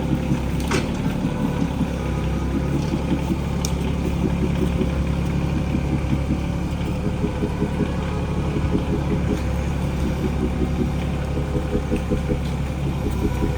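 Farm tractor engine running steadily, a low even drone, with a few short sharp clicks or knocks over it.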